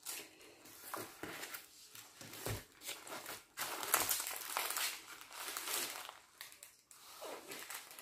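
Plastic sleeve and a rolled diamond-painting canvas crinkling and rustling as they are slid out and unrolled by hand, in irregular bursts that are loudest a few seconds in.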